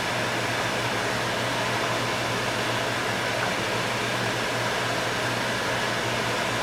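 Kitchen fan running steadily, an even whirring with a constant low hum.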